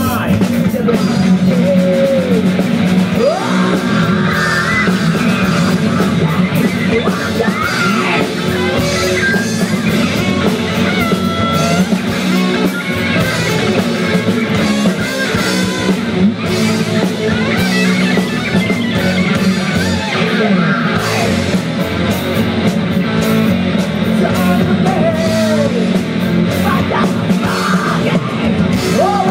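A live hard rock band playing loud, with distorted electric guitars and drums and gliding lead lines over them.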